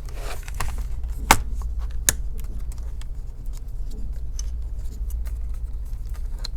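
Small plastic parts being handled as a laptop DC power jack is slid into its slot in the plastic base: scattered light clicks and taps, with two sharper clicks a little over a second and about two seconds in, over a steady low hum.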